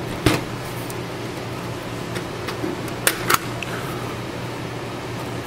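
Sharp plastic clicks as the paper trays of an HP DeskJet 1010 inkjet printer are opened: one loud click about a quarter second in, then a couple of fainter ones and two more clicks close together about three seconds in, over a steady low hum.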